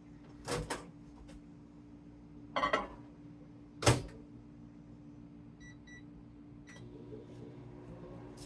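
Microwave oven in use, warming melted butter and olive oil: a few knocks and a loud clunk about four seconds in, then three short keypad beeps, after which the oven starts running with a steady hum.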